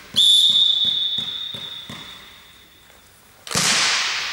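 Referee's whistle blown in one long steady note to signal the serve, fading out over about three seconds. Under it a volleyball is bounced on the court floor at an even pace. About three and a half seconds in comes a sharp loud hit as the ball is served.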